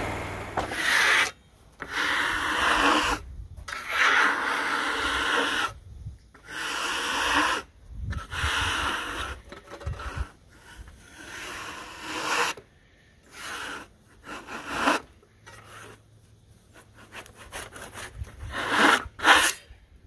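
Sawdust being swept by hand off the freshly sawn face of a box elder log: a run of rubbing strokes a second or so long, getting shorter and quicker near the end.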